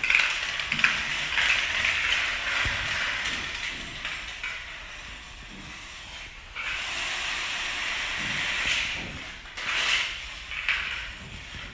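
Long chain of plastic dominoes toppling on a tile floor: a dense, fast clatter that thins out about four seconds in and picks up again about two seconds later.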